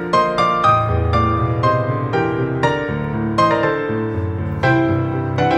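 Background music led by a piano-like keyboard playing a melody of struck notes over a bass line.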